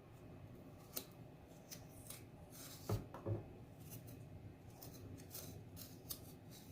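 Raw ginger root being scraped to peel off its skin: faint, irregular short rasping strokes, with a couple of soft knocks about three seconds in.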